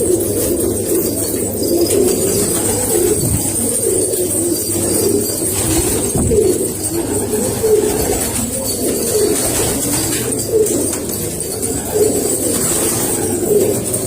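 Many domestic pigeons cooing at once, their overlapping low coos forming a steady continuous chorus.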